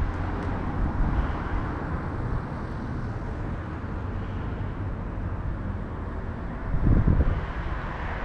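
Steady outdoor background rumble, with a louder low buffet about seven seconds in.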